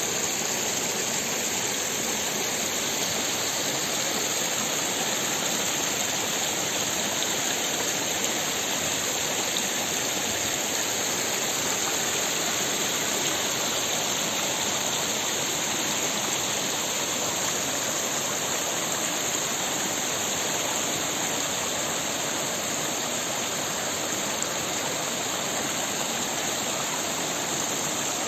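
Shallow mountain stream running over rocks and small cascades, a steady rush of water.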